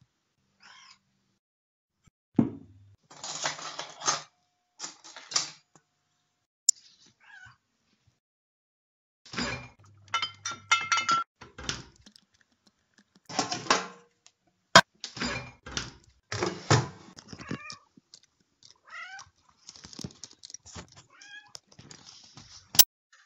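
A cat meowing in several short gliding calls. Between and under the calls are bursts of clattering and a few sharp clicks.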